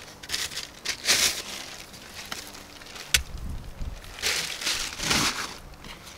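Rustling and crinkling of gear and a bag being handled and packed, in irregular bursts, with a single sharp click a little after three seconds in.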